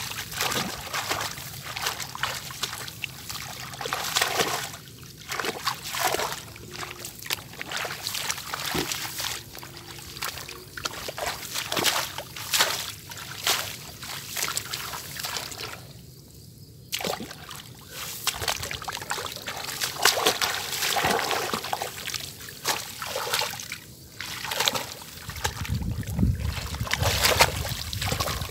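Water splashing and sloshing in quick irregular bursts, with trickling between them. A low rumble sets in near the end.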